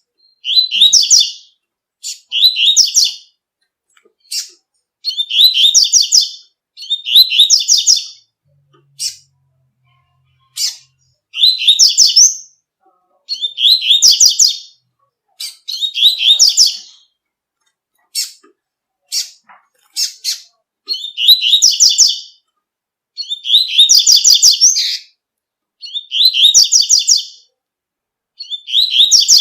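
Double-collared seedeater (coleiro) singing the 'tui-tui' song: a short, high phrase of about a second, repeated about a dozen times at intervals of roughly two seconds, with brief sharp single notes in between.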